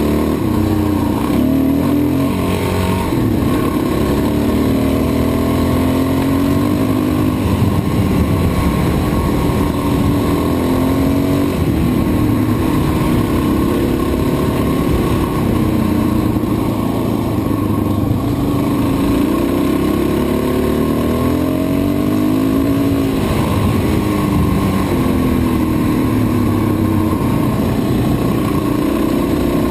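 Motorcycle engine running under way on a dirt road, its pitch rising and falling repeatedly as the throttle opens and closes.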